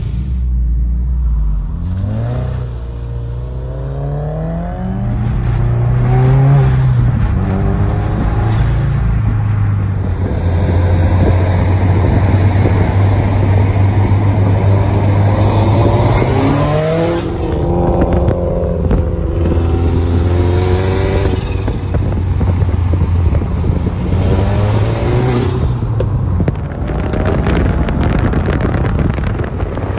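Car engines accelerating hard, their revs climbing and dropping through several gear changes, with a steadier drone for a few seconds in the middle.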